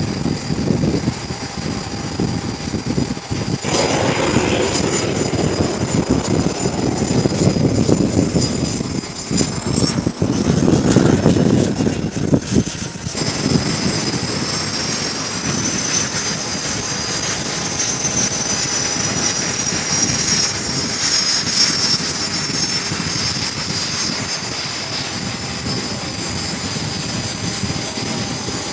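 T-45 Goshawk jet trainer's Adour turbofan engine running: a steady high-pitched turbine whine over a rushing rumble. The whine rises in pitch about ten seconds in.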